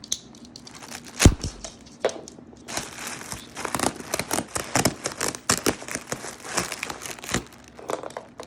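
Bubble wrap being crinkled and pulled off by hand, in dense irregular crackles, with one sharp knock about a second in.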